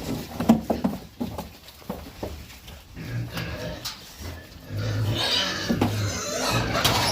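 Pigs grunting and squealing, with a few sharp knocks in the first second.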